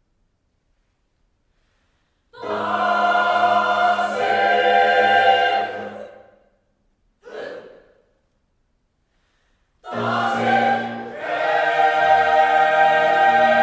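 A choir singing sustained chords. It enters after about two seconds of silence and holds a chord for about four seconds before fading. A short sound follows, then a pause, and the choir comes in again with another held chord.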